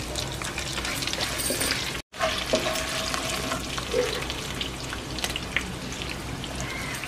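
Hot oil sizzling and crackling in a frying pan as a tempering of curry leaves, chillies, dals and nuts fries, stirred with a wooden spatula. The sound cuts out for an instant about two seconds in.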